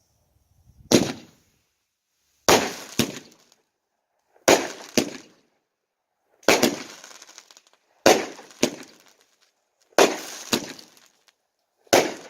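Nine-shot mini NOAB firework cake with 1-inch tubes firing shot after shot, about one every two seconds. Each shot is a pair of loud bangs about half a second apart: the launch, then the shell bursting.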